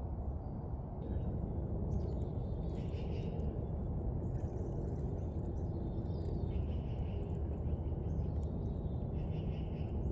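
Small birds chirping and calling faintly over a steady low rumble, the calls coming in from about two seconds in.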